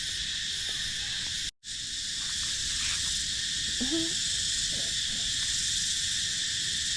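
A steady, high chorus of tropical insects buzzing without a break. The sound drops out for an instant about a second and a half in, and a short rising call is heard about four seconds in.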